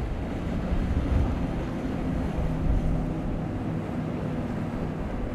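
Five Mercury 450 outboard engines on a Scout boat running at speed, a steady engine drone over the rush of the hull through the water, with wind buffeting the microphone.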